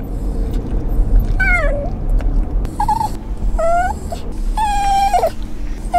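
Italian greyhound crying in a car: four high-pitched whining cries that bend up and down, the longest lasting about a second, over the car's low rumble. He is distressed by the car ride.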